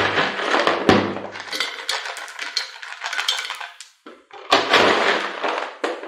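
Lumps of volcanic rock clattering and rattling as they are poured from a plastic scoop into a glazed bonsai pot to build the bottom drainage layer. Two pours, with a short pause a little after the middle.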